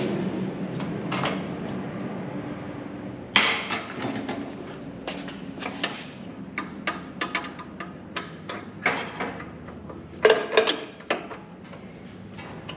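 Irregular metallic knocks and clinks of hand tools and parts while a car's rear axle is fitted and bolted up. The loudest are a sharp knock about three and a half seconds in and a cluster of knocks about ten seconds in. A steady mechanical hum fades out over the first two seconds.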